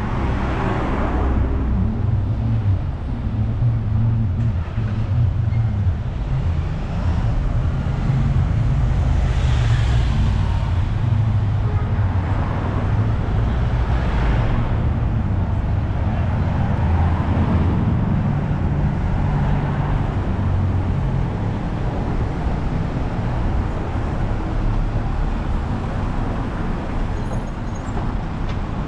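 Street traffic: a steady low rumble of engines with several vehicles passing close by, each a rising and fading swish.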